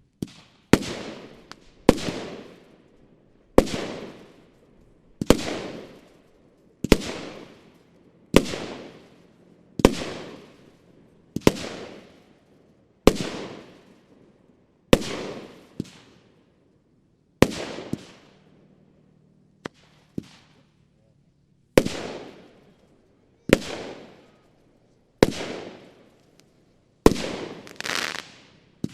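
A 30 mm, 25-shot firework battery (cake) firing shot after shot, about one every one and a half seconds and faster near the end. Each shot is a sharp bang with a tail that fades over about a second.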